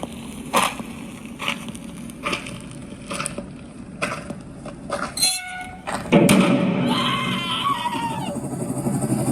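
Cinematic sound effects played through an Advance SR20 soundbar. First a series of sharp knocks about once a second, then a brief ringing tone a little after five seconds, then from about six seconds a loud rumble with tones sliding downward.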